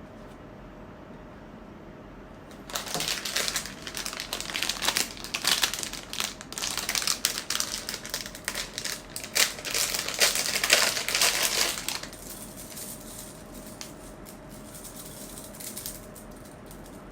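Blind-box packaging wrapper crinkling and rustling as it is torn open and handled, starting about three seconds in and loudest for the next nine seconds, then fading to lighter rustles.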